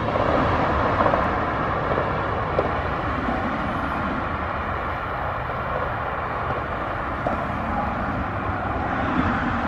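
Steady rush of distant road traffic, an even, unbroken noise that swells slightly near the end.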